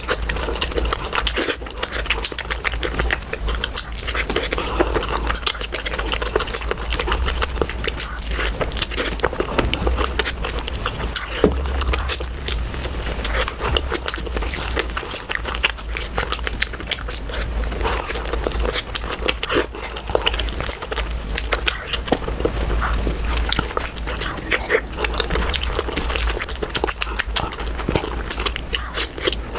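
Close-miked eating of puri with mutton curry: continuous chewing and biting, with many small clicks.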